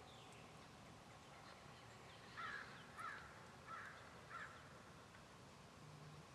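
A crow cawing four times, its calls a little over half a second apart, over a faint steady hiss.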